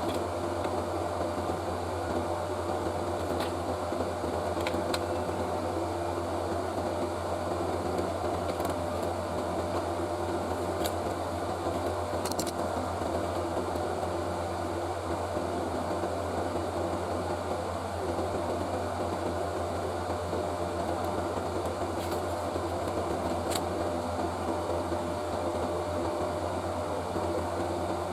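A small electric fan or blower running steadily with a constant hum, with a few faint clicks here and there.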